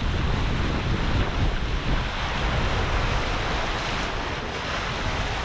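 Wind buffeting the microphone over the steady rush of water along the hull of a catamaran under sail.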